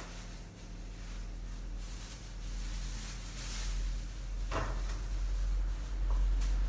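Kitchen handling at a counter: a plastic bag rustling, then a knock about two-thirds of the way in, over a low steady hum.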